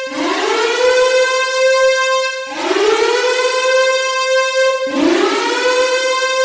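Civil defense siren tone that winds up quickly in pitch and then holds steady, breaking off and starting again from low about every two and a half seconds, three times.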